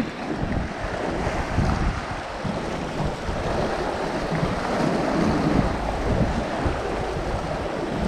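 Sea waves washing against shoreline rocks, with wind buffeting the microphone in a steady low rumble.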